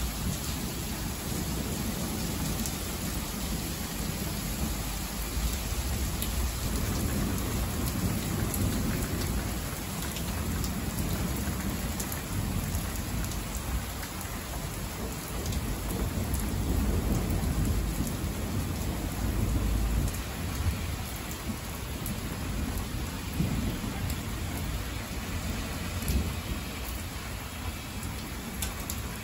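Heavy rain pouring down on roofs and a wooden balcony during a thunderstorm, with deep rolls of thunder rumbling under the hiss, swelling loudest about two-thirds of the way through.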